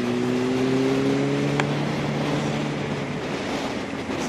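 Yamaha R1's inline-four engine running on light throttle, its pitch rising gently for the first second and a half before fading under steady wind noise. A single sharp click comes about a second and a half in.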